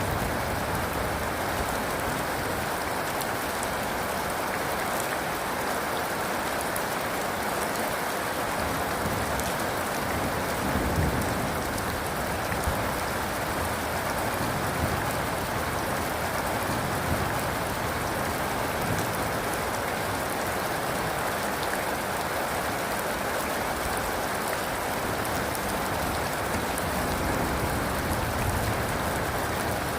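Steady rain falling: an even hiss of many drops, with a few slightly louder spatters.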